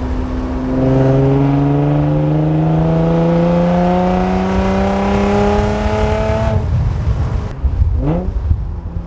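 Infiniti G35 coupe's 3.5-litre V6 with the muffler and resonator deleted, heard from inside the cabin while accelerating: the exhaust note climbs steadily in pitch for about six seconds, then drops away suddenly as the pull ends. The note is much louder and more droning than with the stock exhaust.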